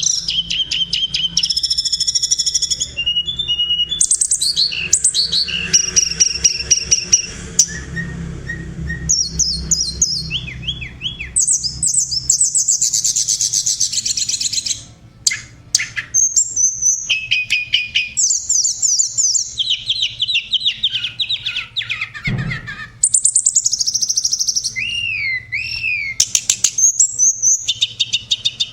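A tledekan, a small Indonesian songbird, singing a fast, varied song of sharp repeated notes, rapid trills and up-and-down whistled slurs with short pauses. A single dull thump comes about three quarters of the way through.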